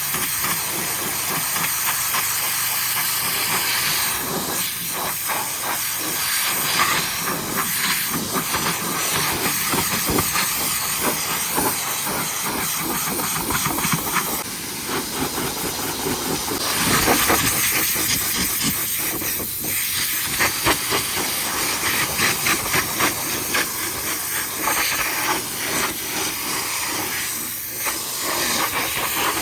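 High-pressure washer jet spraying water onto a mud-caked truck's wheels and lower panels, a steady spray with constant spattering as it strips dried mud.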